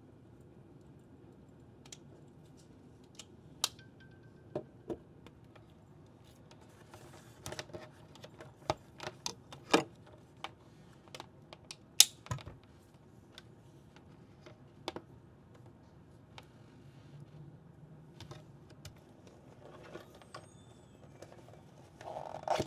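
Typing on a computer keyboard: scattered key clicks and taps, a few at a time with pauses between, busiest in the middle. A short, louder rustle comes at the very end.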